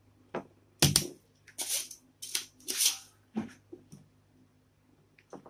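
Spring-loaded desoldering pump (solder sucker) being cocked and fired on a circuit board: two sharp snaps about a second in, then several short hissy bursts and clicks over the next two seconds, and a few fainter clicks near the end.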